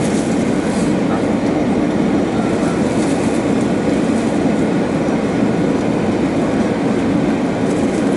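Steady jet airliner cabin noise on final approach: a low rumble of engines and airflow with a hiss on top, heard from a window seat beside the wing engine.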